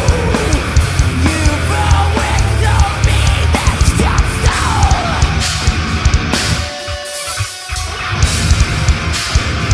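A heavy metal band playing live, with electric guitar, bass guitar and drums. About seven seconds in, the bass and drums drop out for a moment, leaving one held note, before the full band comes back in.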